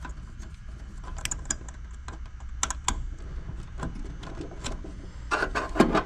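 Light, irregular clicks and rattles of hands handling wires and connectors at a PTAC capacitor, over a steady low hum. The clicks come in a denser, louder cluster near the end.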